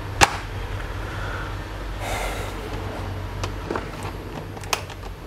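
A few sharp clicks and taps of an HP 15-a series laptop's plastic base being handled on a table, the loudest just after the start. A steady low rumble of outside noise runs underneath.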